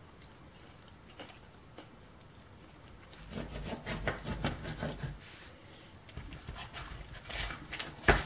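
A knife sawing and scraping through a baked cheese-and-egg flatbread crust on parchment paper over a baking tray. Bursts of crackling and scraping begin about three seconds in and come again near the end, with one sharp knock just before the end.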